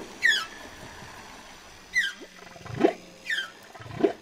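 Whale calls: a series of high, falling squeals alternating with low, rising moans, about one call a second.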